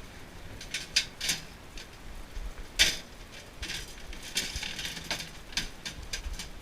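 Clatter of computer scrap being handled: an irregular series of sharp clicks and knocks from metal and plastic parts, the loudest about three seconds in.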